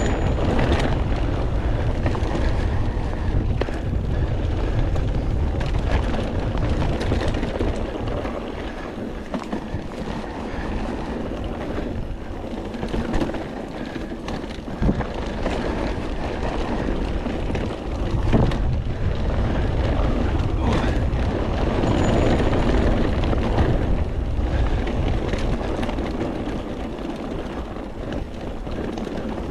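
Mountain bike riding down a trail: wind buffeting the microphone and tyres rolling over the trail surface, with scattered knocks and rattles from the bike over bumps.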